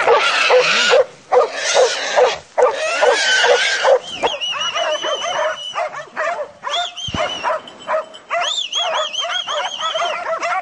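Hunting dogs barking and yelping excitedly. Dense overlapping barks at first, then quick runs of high yelps, several a second.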